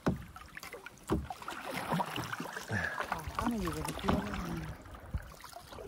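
Canoe paddles stroking through calm water, with splashing and dripping, and a few sharp knocks of wood against the boat, near the start, about a second in and near the end.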